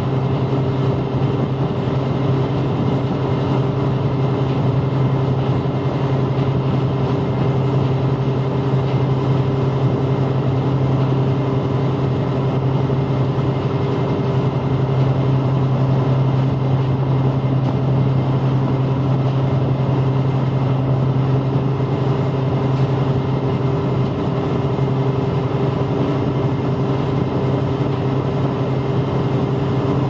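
A lake passenger boat's diesel engine running steadily while under way. It is a constant low hum with a few steady tones above it, over the rush of water along the hull and wake.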